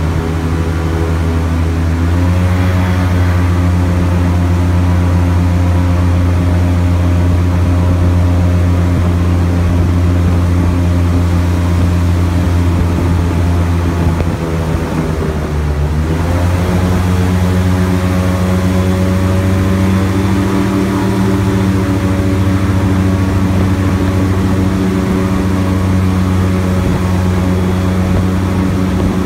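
Airboat's engine and air propeller running at speed, one loud steady pitched hum. The pitch rises about two seconds in, sags briefly about halfway through as the engine slows, then climbs back and holds.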